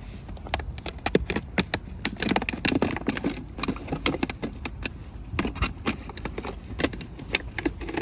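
Puppies and a young dog eating canned wet food off plastic bags: irregular wet chewing and smacking mixed with crinkling of the plastic, many quick clicks and crackles.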